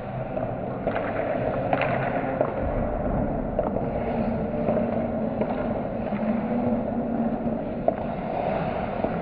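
Ice hockey play heard from behind the net: skate blades scraping the ice, with sharp clacks of sticks and puck now and then over a low steady hum.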